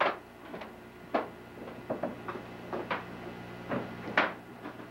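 About ten sharp clicks and taps, irregularly spaced, over a steady low hum.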